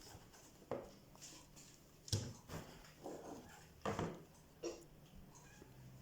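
Scattered light clicks and knocks of a box and ingredient containers being handled, about five in six seconds.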